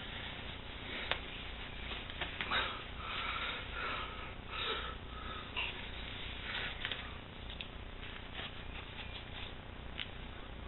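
Faint hiss of room tone with soft rustling and breathing close to the microphone, and a few light clicks.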